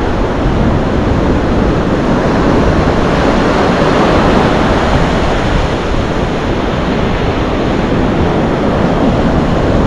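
Steady noise of ocean surf breaking on a beach, with wind on the microphone.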